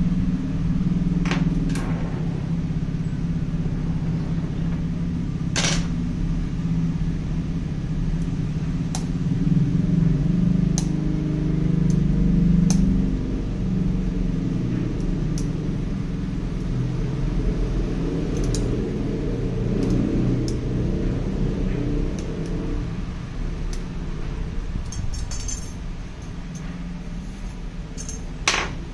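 Steady low machine hum, with a few sharp clicks.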